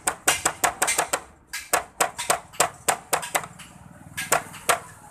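Plastic tail cowl of a Hero Splendor motorcycle knocked and shaken by hand, rattling with a quick, irregular series of sharp clattering knocks in bunches, with a short lull a little before the end. The clatter is the sign of a loose, vibrating tail panel.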